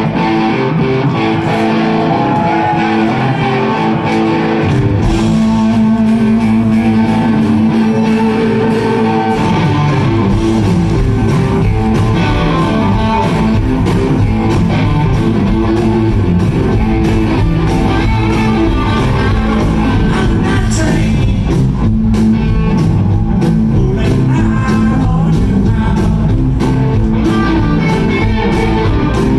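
Live band playing: several electric guitars over electric bass and drums, with a guitar bending notes. The bass and drums fill out the low end about five seconds in.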